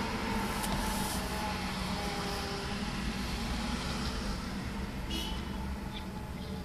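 Hiss and static from a homemade transistor superheterodyne AM receiver with no station coming through, with faint drifting whistle tones over a low rumble.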